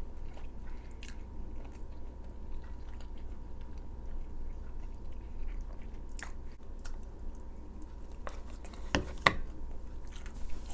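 Close-miked chewing and mouth sounds of a person eating, with a few sharper smacks or clicks about six and nine seconds in.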